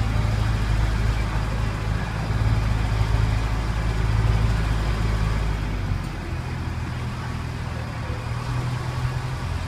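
Engine of a tourist tram running steadily while it drives through the streets, heard from on board. About six seconds in, the engine note shifts lower and eases a little.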